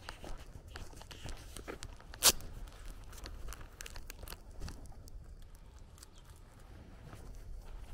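Footsteps of a person walking on a rural dirt-and-grass path, with one sharp, loud click about two seconds in.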